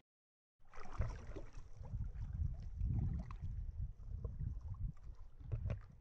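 Sea water sloshing and lapping around a camera held at the surface: an uneven low rumble with small splashes and droplet clicks, starting about half a second in after a brief silence.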